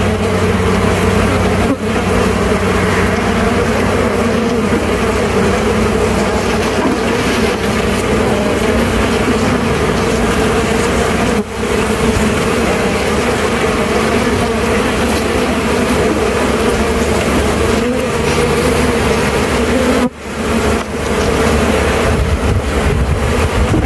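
Loud, steady buzzing of a mass of honeybees (Apis mellifera) stirred up around an open hive box during a colony transfer, with three brief dips in loudness.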